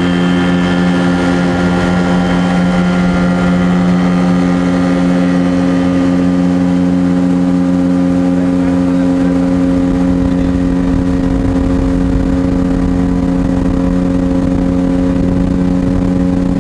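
Motorboat engine running steadily at speed, loud and holding one even pitch.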